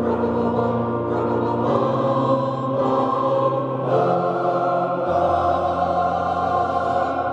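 Mixed choir of men's and women's voices singing slow, held chords that change every second or two.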